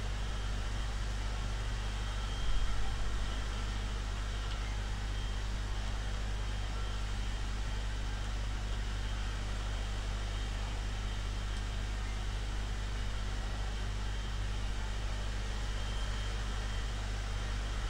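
Steady low hum with an even hiss of room noise, and one brief louder bump about two and a half seconds in.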